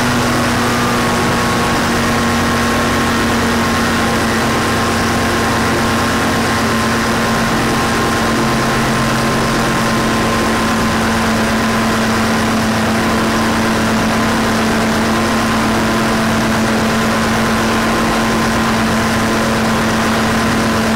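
Rotax 503 air-cooled twin-cylinder two-stroke engine of a Challenger 2 ultralight running steadily at low throttle with its propeller turning, shortly after a cold start on full choke. It holds an even drone throughout.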